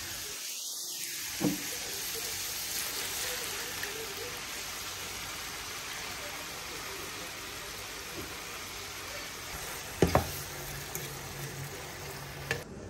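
Browned minced beef sizzling steadily in a frying pan while tomato pasta sauce is poured in from a jar and stirred through, with a sharp knock about ten seconds in.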